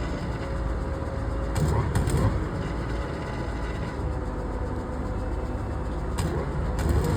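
Heavy machinery engine running steadily with a low rumble, with two brief louder bursts, one about a second and a half in and another near the end.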